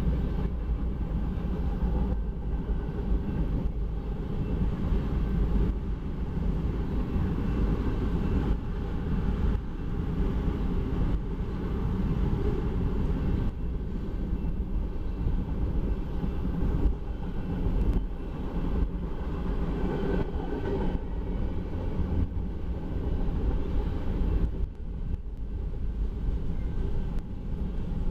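Freight cars rolling past on steel wheels: a steady low rumble and rattle from wheels on rail, with an occasional faint knock.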